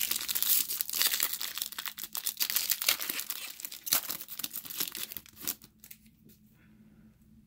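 Foil wrapper of a 2009 Topps Kickoff football card pack being torn open and crinkled by hand: a dense crackle that dies away about five and a half seconds in.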